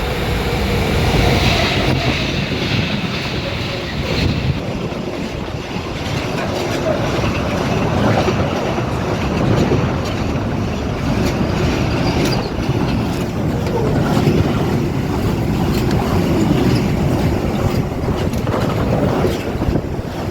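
A train running past on the railway: a loud, steady rumble with repeated clicks from the wheels.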